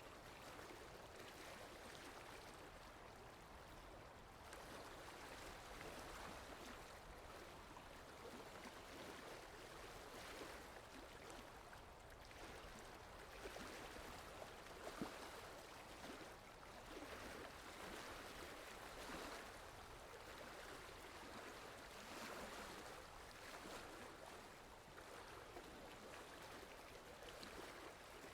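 Faint water lapping gently, swelling and easing every few seconds, with wind. A brief sharp click about halfway through.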